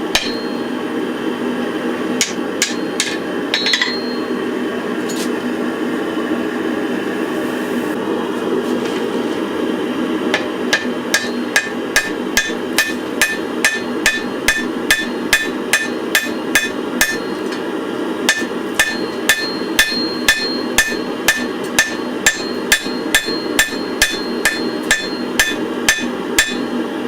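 Hammer blows on a hot billet of wrought iron and spring steel, setting a forge weld: a few scattered ringing strikes at first, then steady strikes about two a second from about ten seconds in, with a short pause partway through. A steady rushing noise runs underneath.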